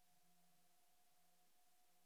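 Near silence: faint steady hiss with a faint constant tone and low hum, the noise floor of a silent film transfer.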